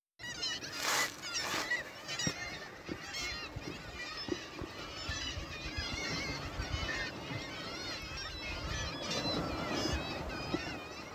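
A flock of birds calling continuously, many honking calls overlapping one another, over a low rumble.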